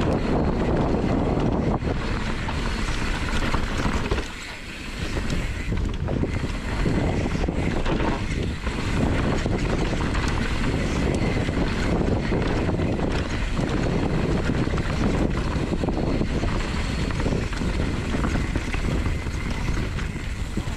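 Wind buffeting the microphone: a loud, steady rushing noise that drops briefly about four seconds in.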